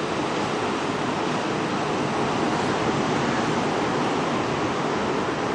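Steady noise of ocean surf, mixed with wind on the microphone.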